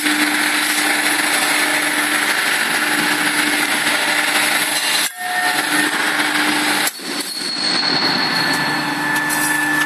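DW38/50NC square pipe bending machine running with a steady mechanical hum, broken off abruptly about five seconds in and again about seven seconds in.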